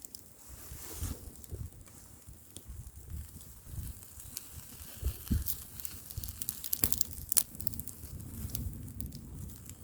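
Bonfire crackling, with scattered sharp pops that cluster around the middle, over low gusts of wind buffeting the microphone.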